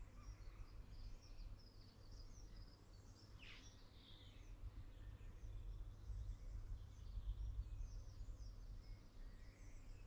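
Faint birdsong: several small birds chirping and calling high up, with one clearer call sweeping down in pitch about three and a half seconds in, over a steady low rumble.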